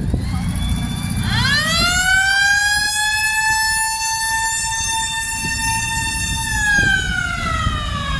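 A siren winds up about a second in, holds one steady wail, then slowly winds down near the end, over the low running of military vehicle engines passing in a parade.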